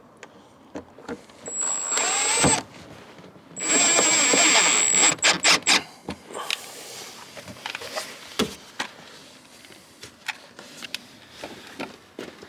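Handheld power drill run twice under load with a high motor whine, spinning down at the end of the first run, followed by a few short trigger blips.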